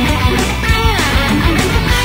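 Guitar-led background music with a steady beat.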